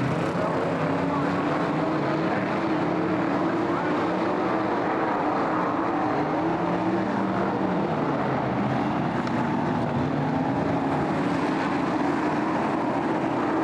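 Several BriSCA F1 stock cars' V8 engines running together at racing speed. It is a steady, loud drone whose pitch keeps rising and falling as the cars go round the oval.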